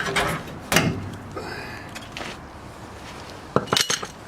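A quick cluster of sharp knocks and clatters about three and a half seconds in.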